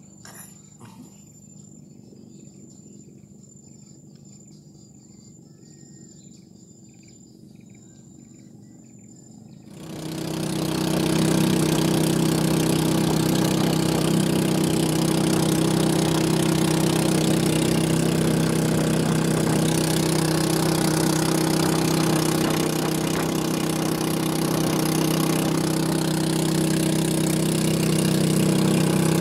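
A faint, steady high-pitched insect drone with soft chirps, then about ten seconds in a small boat engine starts and runs loud and steady.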